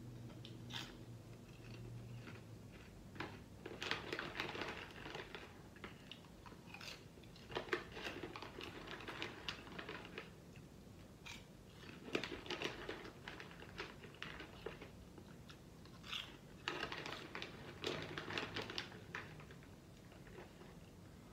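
A person chewing crunchy kettle corn popcorn, in several bursts of crackly crunching separated by short pauses.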